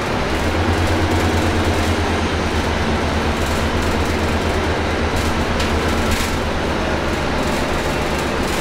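Inside a Volvo B9TL double-decker bus on the move: its six-cylinder diesel engine drones steadily under road and body noise, with a low hum that is strongest in the first half.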